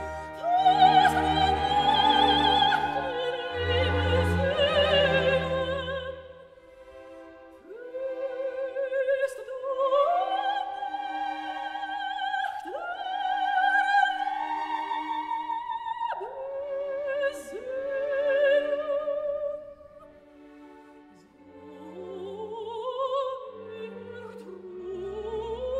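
Opera singing with orchestral accompaniment: a high voice holds long notes with heavy vibrato, sliding up into each new note. The low orchestral chords drop out about six seconds in and come back near the end.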